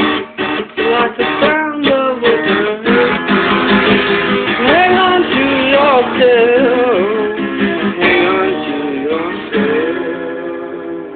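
Acoustic guitar strumming the closing bars of a song, with a sliding melody line over the chords. The final chord rings out and fades away near the end.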